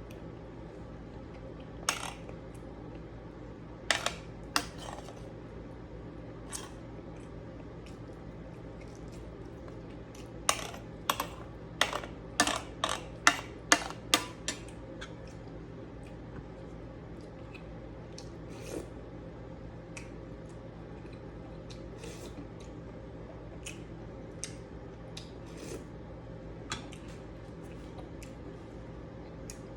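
Eating utensils clinking against a plate: a few sharp clinks, then a quick run of about eight clinks over four seconds, then only occasional faint ticks, over a steady low hum.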